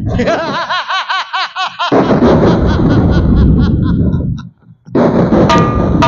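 A man's long, rhythmic villain's laugh through the stage microphone, about five "ha"s a second. Loud drum-heavy musical accompaniment follows it.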